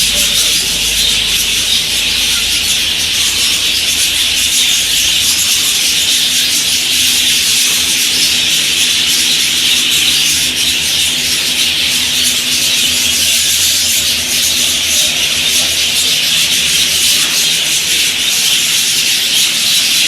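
A large flock of budgerigars chattering together in an aviary, a dense, steady high-pitched din of many overlapping calls.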